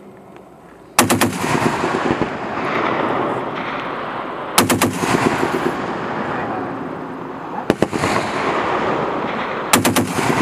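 M2 Browning .50 caliber heavy machine gun firing four short bursts of a few rounds each, about a second in and then every three seconds or so, with a long rolling echo after each burst.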